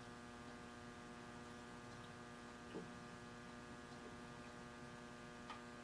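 Faint steady electrical hum, with two faint ticks, one near the middle and one near the end.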